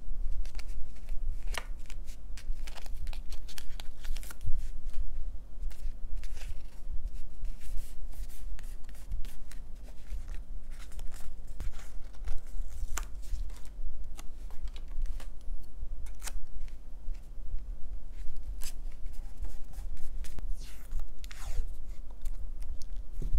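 Close-up paper-craft handling: stickers peeled from a sheet and paper handled, with scratchy rustles, tearing and small clicks throughout, over a steady low hum.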